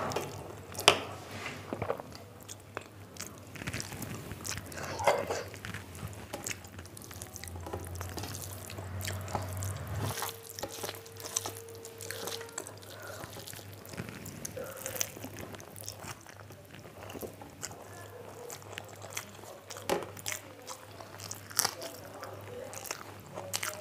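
Close-up eating sounds: fingers squishing and mixing rice with curry on a steel plate, and mouthfuls being chewed, with scattered small wet clicks and taps.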